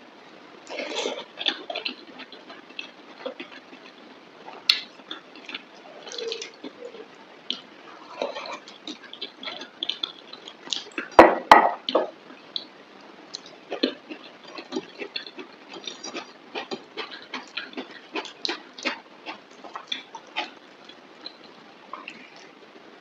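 Close-up eating sounds: wet chewing and lip-smacking of mutton curry and rice, a string of short, irregular clicks and smacks, loudest in a cluster about eleven seconds in.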